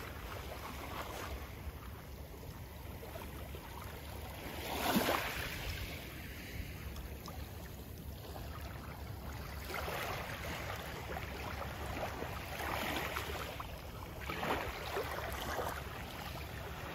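Small waves lapping and washing onto a pebbly shore, swelling and fading every few seconds, over a steady low rumble of wind on the microphone.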